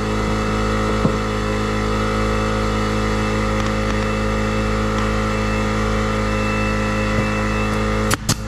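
A motor drones steadily throughout. Near the end a pneumatic brad nailer fires twice in quick succession, driving brads through an OSB gusset into a roof-truss joint.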